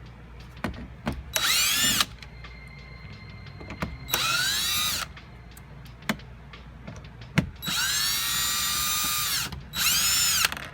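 Small cordless electric screwdriver with a Torx T20 bit whirring in four short bursts, spinning up and winding down each time as it backs out door-panel screws, with sharp clicks between the bursts.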